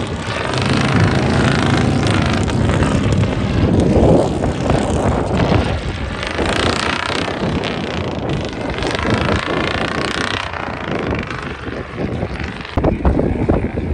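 Engine of a tube-framed off-road competition truck revving up and down several times as it drives through loose sand.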